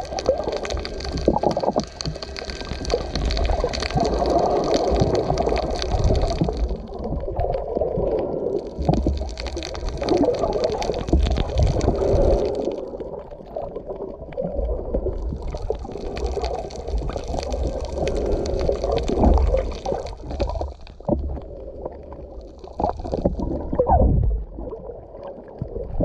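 Muffled underwater water noise, gurgling and rushing over a low rumble, as picked up by a camera held underwater, with stretches of higher hiss that come and go.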